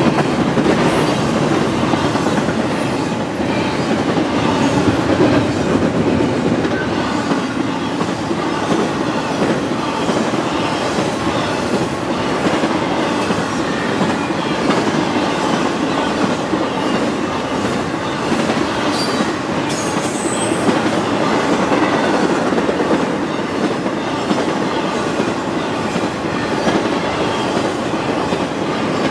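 Intermodal freight train of double-stacked container well cars and trailer-carrying flatcars rolling past at speed: loud, steady noise of steel wheels on rail, with the clatter of wheels crossing rail joints.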